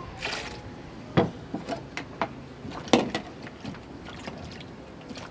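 A knife cutting vegetables, with sharp clicks and small knocks as pieces drop into a plastic blender jar and light wet splashing from the wet food.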